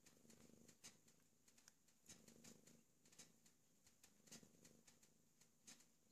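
Faint cat purring that swells and fades about once a second, with soft clicks of a cat's tongue licking another cat's fur.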